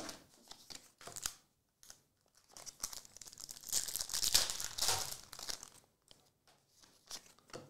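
Foil trading-card pack crinkling as it is torn open by hand, after a few light clicks of cards being handled. The crinkle runs for about three and a half seconds and is loudest just past the middle.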